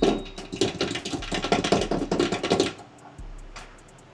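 Background music with a fast, even ticking beat, dropping quieter after about three seconds.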